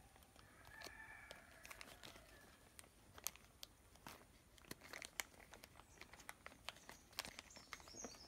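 Faint crinkling and rustling of a polythene bag being handled as its folded bottom is tied off with a string, heard as many small irregular clicks. Faint bird chirps come in near the end.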